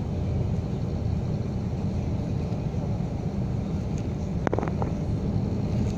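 Steady low rumble of road and engine noise inside a car driving along a highway. A brief short pitched sound cuts in about four and a half seconds in.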